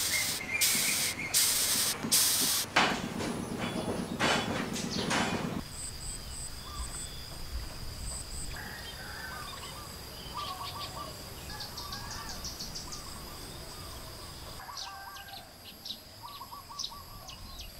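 A few loud hissing bursts in the first seconds, then outdoor ambience: birds chirping over a steady high-pitched insect drone.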